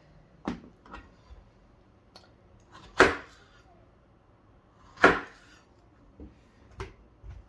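Knife cutting plantain on a chopping board: a few separate knocks of the blade on the board. The two loudest come about three and five seconds in.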